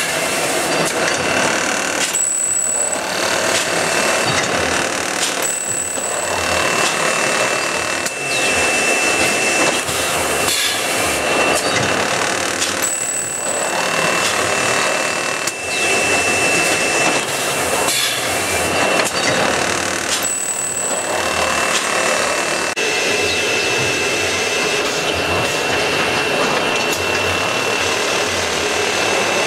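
Nursery seeding and tray-filling line running: a dense, steady mechanical noise with a thin high whine. Four times the noise briefly dips and a short, very high tone sounds.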